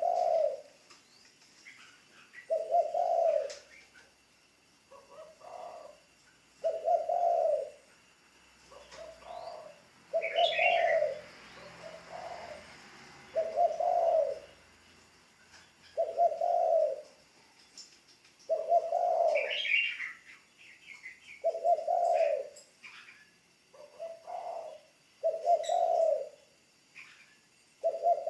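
Spotted dove cooing over and over: a loud low coo about every three seconds, with softer coo notes in between. Brief higher chirps from another bird come in twice.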